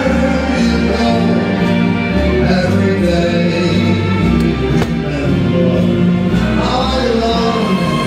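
Ballroom dance music with a singing voice and a steady bass line, playing loudly for the competing couples.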